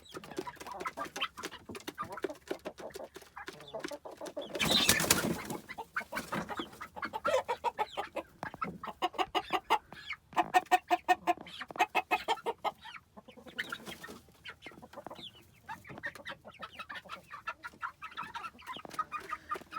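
Chickens clucking in quick runs of short calls, with a brief loud rushing burst about five seconds in.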